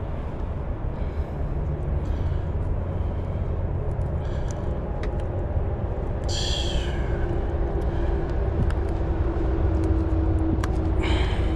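Wind buffeting the microphone as a steady low rumble, with scattered light clicks and a brief high-pitched sound about six seconds in.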